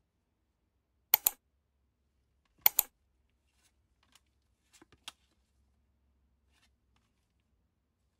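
Trading cards handled in gloved hands: two pairs of sharp clicks about a second and a half apart, then a few fainter ticks as the cards are shifted through the stack.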